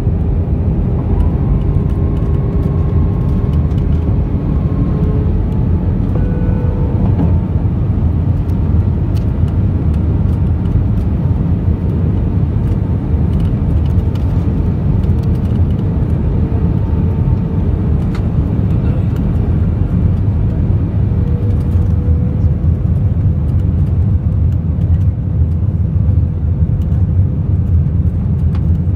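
Cabin noise inside an Airbus A320ceo descending on approach with flaps extended: a steady, loud rumble of engines and airflow, with faint whining tones that shift slightly in pitch.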